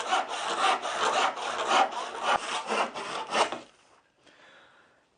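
Handsaw cutting through a wooden rail in quick, even strokes, about three a second, stopping about three and a half seconds in.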